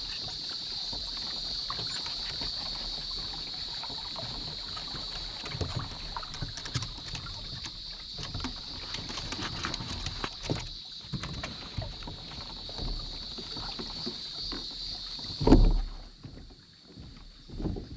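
A kayak being paddled through calm water: splashes and drips from the paddle, with scattered knocks and one loud thump near the end. Under it runs a steady high-pitched drone, which fades at about the same time as the thump.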